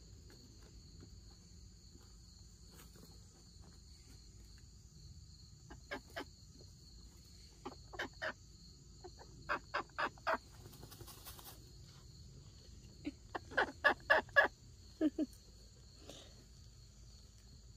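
Domestic hens clucking: short calls in scattered runs of two to six, busiest around the middle and again near the end.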